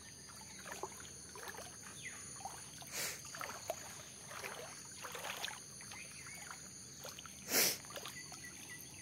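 Faint splashing and lapping of shallow flood water, with two short, louder splashes, the second and loudest near the end.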